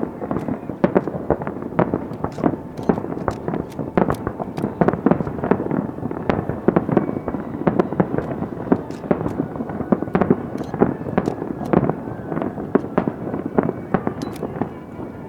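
Aerial fireworks bursting in rapid, overlapping succession, many sharp reports a second, thinning out near the end.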